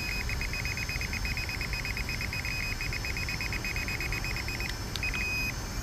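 SJRC Z5 drone remote controller beeping rapidly and evenly, about six short high beeps a second, as it keeps doing the whole time video is being recorded. The beeping stops near the end and one longer beep follows.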